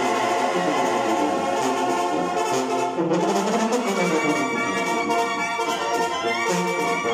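A Mexican banda, a brass band, playing live: trumpets and trombones carry the tune over drums.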